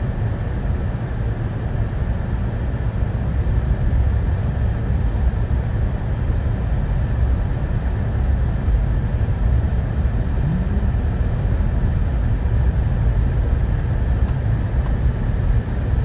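Steady low rumble of a car driving slowly, heard from inside the cabin: engine and tyre noise on a snow-covered road.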